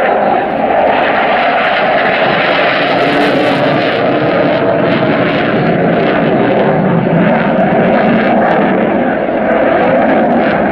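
Eurofighter EF-2000 Typhoon's two Eurojet EJ200 turbofans, a loud, steady jet noise as the fighter manoeuvres overhead.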